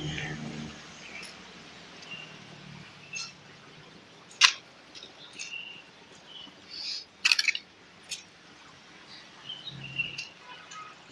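Small birds chirping off and on in short, high calls, with two sharp clicks about halfway through, the second a quick rattle of several, louder than the birds.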